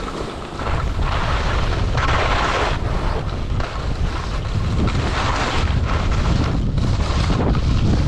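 Wind buffeting the microphone of a skier's camera during a fast downhill run, with skis hissing and scraping over packed snow, swelling twice as the skier turns.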